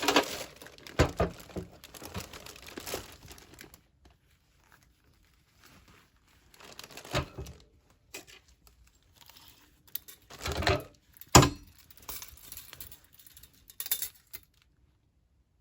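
Packaging being unwrapped: paper or plastic crinkling and tearing in irregular bursts, with a few sharp knocks, the loudest about eleven seconds in.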